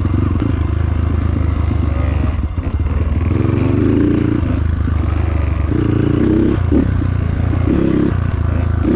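Motorcycle engine running at low revs; its note swells briefly about three times.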